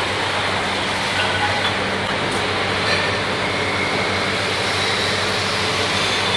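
Double disc grinding line for connecting rods running: steady machinery noise, an even hiss over a low hum, with faint whines.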